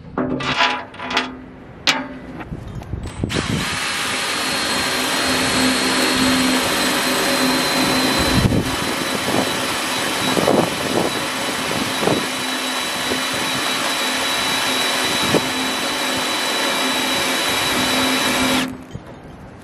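Power drill with a step bit boring through the steel wall of a tractor loader bucket. A few short squeezes of the trigger first, then about fifteen seconds of steady drilling with a thin whine over it, easing off for a moment partway, and stopping suddenly near the end.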